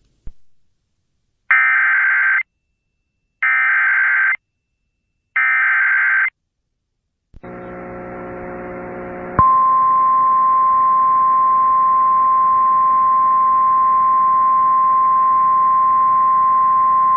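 Emergency Alert System SAME header: three short bursts of warbling digital data tones, a second apart. A faint hum comes in after them, and then a single steady attention tone near 1 kHz, the National Weather Service's 1050 Hz alert tone, starts about nine seconds in and holds.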